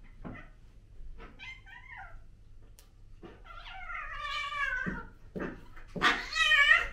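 A cat yowling while play-fighting with another cat: a short wavering call about a second and a half in, a long wavering yowl around four seconds in, and a louder, harsher yowl near the end.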